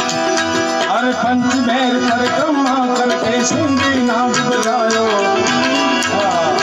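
Live Gujarati folk music: a male singer enters about a second in with a long, ornamented vocal line over steady held instrumental tones and hand-drum accompaniment.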